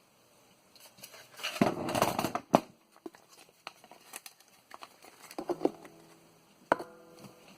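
Floppy disk drive parts being handled during disassembly: a rustle about two seconds in, then scattered light clicks and taps, one near the end followed by a brief faint ring.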